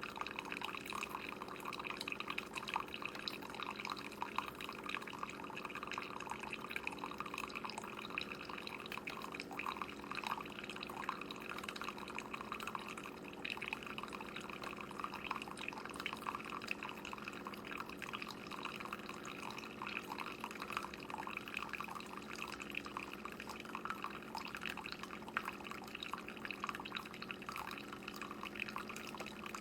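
Keurig single-serve coffee maker brewing: coffee streams and drips steadily into the cup, with a steady hum beneath it.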